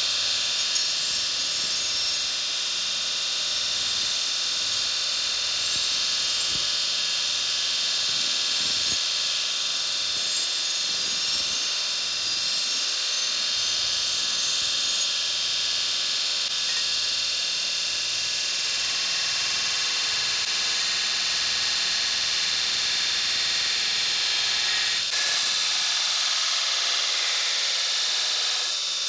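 Belt grinder running with a steel saw-blade blank held against the abrasive belt: a steady, high-pitched grinding hiss.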